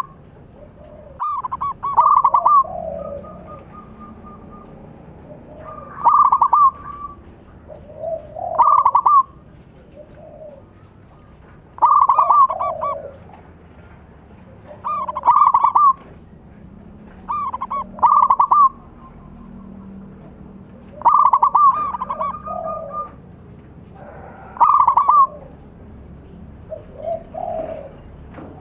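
Zebra dove (perkutut) cooing its rolling song over and over, about one phrase every three seconds. Each phrase is a lower coo followed by a quick cluster of higher, louder coos.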